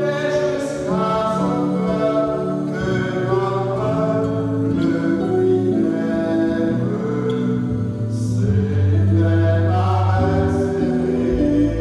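Church hymn: a woman sings the lead through a microphone with a small choir, accompanied by an electronic keyboard holding sustained low notes.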